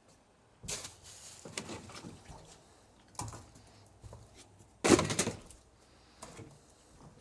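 Junk being rummaged through and set down: scattered rattles and knocks, with one sharp, loud clank about five seconds in.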